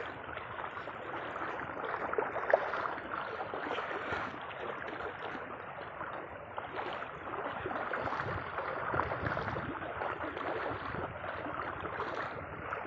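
Floodwater flowing over a road: a steady watery rush dotted with small splashes and gurgles, with one sharp tap about two and a half seconds in.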